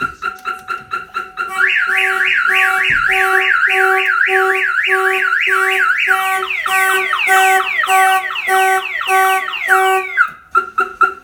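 Viper 3100V car alarm siren going off, running through its tones: a pulsing tone, then a fast rising whoop about three times a second, then a chirping pattern, with the vehicle horn honking in rhythm. The alarm has been tripped by a door being opened. It cuts off about ten seconds in, followed by a few short chirps.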